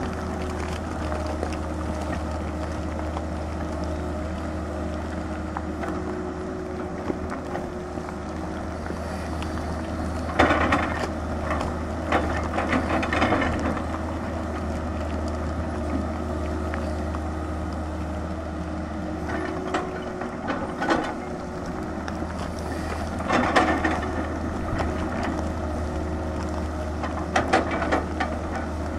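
Tata Hitachi 220 excavator's diesel engine running steadily with a low drone as the machine digs into rocky earth. Four louder bursts of scraping and rattling stand out as the bucket works the ground, two about a third of the way in and two in the last third.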